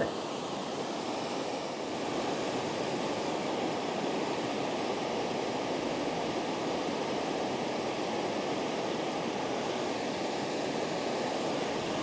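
Steady rushing of the lower falls of the Amnicon River, water pouring over the rock ledge.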